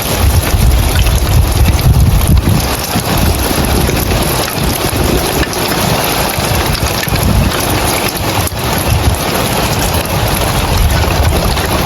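Heavy rain pouring on roof tiles: a loud, dense, steady hiss, with a low rumble that surges and eases throughout.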